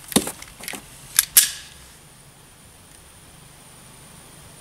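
Several sharp metallic clicks and clacks of a Smith & Wesson M&P 2.0 9mm pistol being handled and readied to fire. The clicks stop about a second and a half in.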